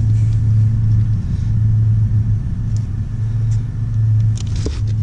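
Steady low mechanical rumble, like a running engine or motor, holding one low pitch with a little pulsing.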